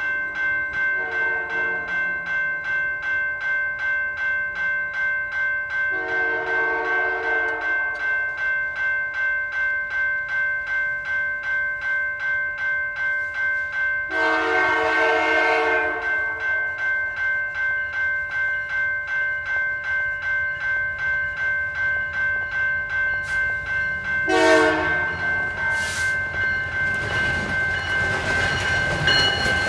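A level-crossing bell rings throughout at about two strokes a second. CP 2249, a GP20C-ECO locomotive, sounds its horn as it approaches the crossing: two long blasts, a short one, and a final loud long blast just beginning at the end, the standard grade-crossing signal. The noise of the train builds near the end.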